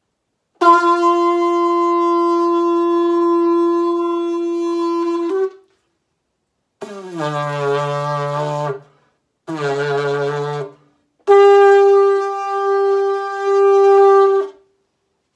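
Lip-buzzed notes played into homemade tube horns, in the manner of a brass instrument. A long steady note comes first, then two shorter notes that each slide down in pitch as they begin. The last note is steady and higher, on a long plastic pipe, and swells three times.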